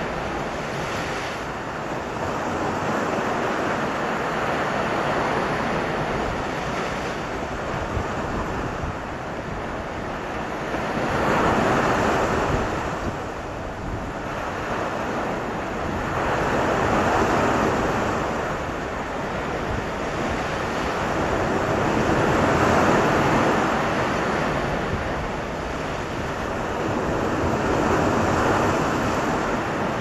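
Sea surf breaking on a sandy, rocky shore: a continuous rushing wash that swells louder about every five or six seconds as each wave comes in and foams up the beach.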